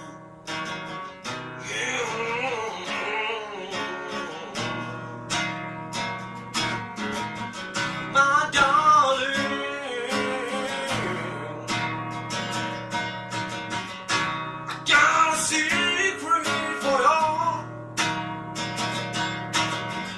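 Strummed acoustic guitar music, with a voice singing or humming over it in places.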